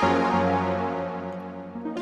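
Sampled synth-keyboard patch from a Kontakt library played as sustained chords. One chord sounds at the start and slowly fades, and a new, brighter chord is struck just before the end.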